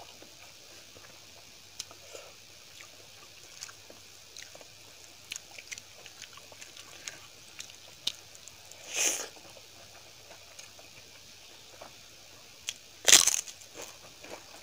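Close-miked eating by hand: soft chewing and small mouth clicks, with a louder sound about nine seconds in. Near the end comes a loud, sharp crunch of crisp papad.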